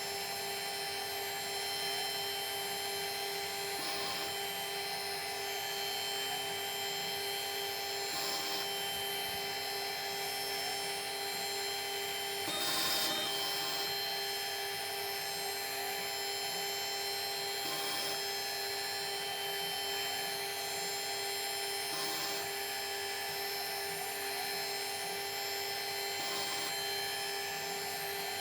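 A workshop machine tool's motor running steadily with a constant whine, with a brief rough scrape of cutting about every four seconds.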